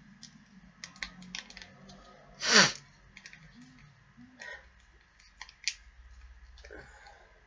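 A small gum wrapper crinkling and clicking as fingers work at it to get it open, with scattered light clicks and one louder short rustle about two and a half seconds in.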